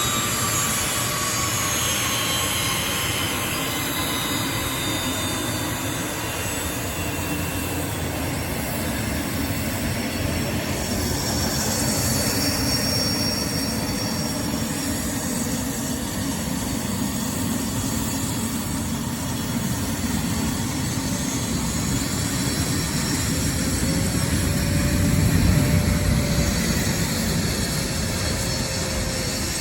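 Private jet's turbofan engines running: a steady, loud rush with a low rumble and thin high whining tones, one of them falling in pitch near the start, swelling a little near the end.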